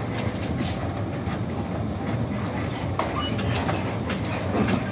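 Coach running on the road, heard from inside the cabin: a steady low engine and road rumble with scattered light rattles and clicks.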